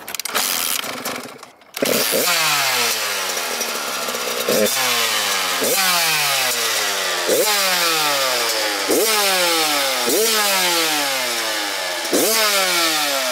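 2018 Kawasaki KX100 two-stroke dirt bike engine kick-started cold on choke, catching about two seconds in. It is then blipped about eight times, each rev climbing quickly and falling slowly back.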